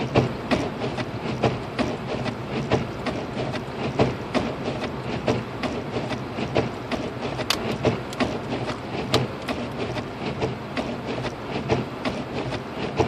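Inside a Lexus IS250 AWD driving slowly through heavy snow: a steady low hum of engine and road, with rapid, irregular clicking and knocking, several times a second.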